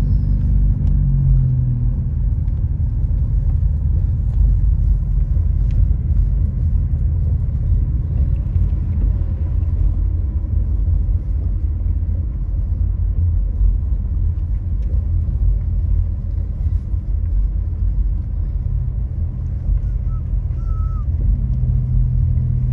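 Steady low rumble of a car driving uphill, heard from inside the cabin: road and engine noise. A low engine hum fades out about two seconds in and comes back near the end.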